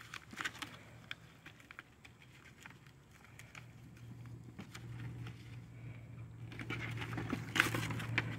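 Brown packing paper and plastic wrap crinkling and rustling in short, irregular bursts as they are pulled off a boxed part, busier near the end. A low steady hum grows louder through the second half.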